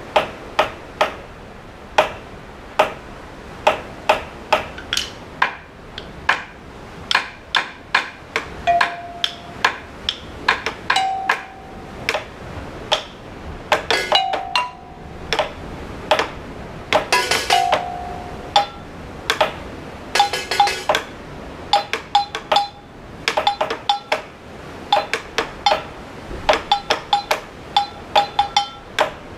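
Improvised percussion: quick taps and clinks on hard objects in a loose, busy rhythm, some strikes giving short ringing notes.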